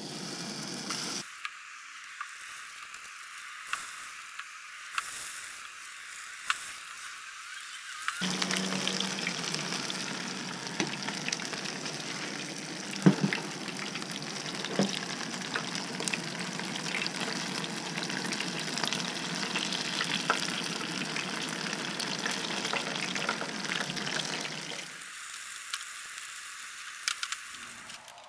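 Beer-battered bass and crappie pieces sizzling in hot oil in a frying pan, a steady hiss with scattered sharp clicks. The sizzle grows louder about eight seconds in and drops back near the end.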